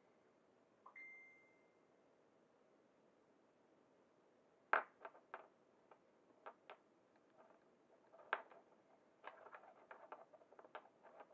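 A single short electronic beep about a second in, then a scatter of light clicks and taps from handling small parts on the quadcopter's workbench.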